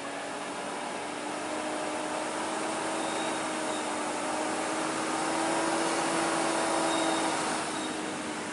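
Heavy cargo truck's diesel engine running as it comes closer, its steady hum rising slightly in pitch and growing louder for about seven seconds, mixed with the noise of following traffic.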